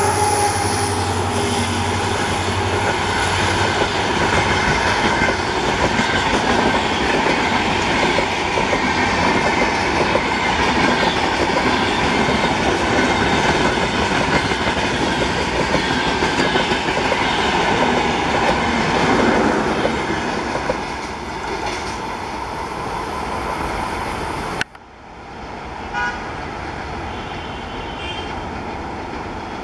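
Twin EMD WDG-4 diesel locomotives (16-cylinder two-stroke) passing at speed, their engine drone fading within the first few seconds, then the express coaches rushing past with loud, steady wheel-on-rail noise and clickety-clack. The sound cuts off abruptly about 25 seconds in to a much quieter stretch with a few faint short tones.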